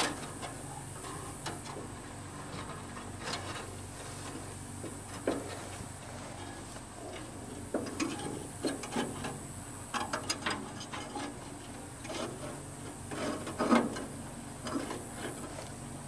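Irregular metallic clicks, taps and scrapes of stiff baling wire being fed through the wire guides and grommets under a New Holland 273 Hayliner wire-tie square baler, loudest in a cluster near the end.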